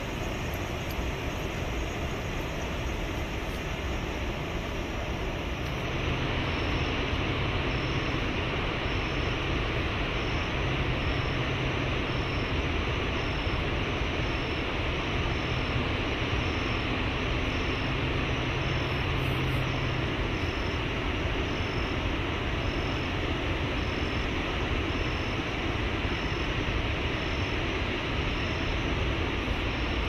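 Waterfall's cascading water rushing steadily, louder and brighter from about six seconds in. A faint high chirp repeats about once a second over it.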